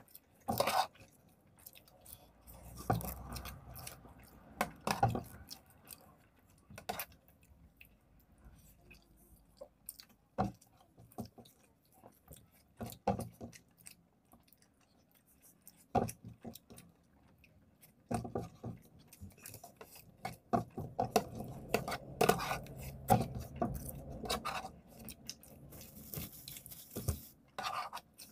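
Close-up eating sounds of macaroni pasta: chewing with wet mouth noises, and a spoon clinking and scraping on a plate, in irregular short bursts.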